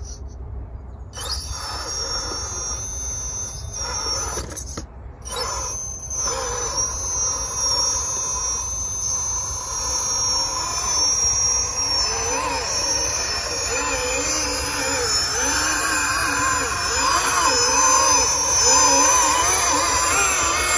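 Drive motor and gearbox of a 6x6 RC scale trial truck whining, the pitch wavering quickly up and down with the throttle. It grows louder in the second half.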